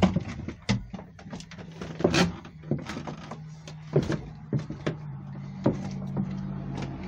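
A string of irregular knocks, bumps and clicks from someone moving and handling things with the camera in hand, over a steady low hum.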